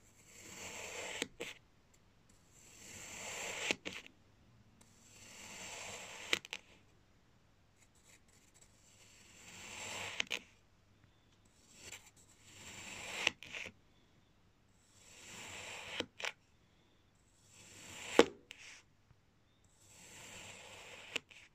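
A kitchen knife slicing down through a packed block of kinetic sand, about eight times, roughly every two and a half seconds. Each cut is a gritty, crunching hiss that builds as the blade sinks in and ends in a sharp tap as the blade reaches the table.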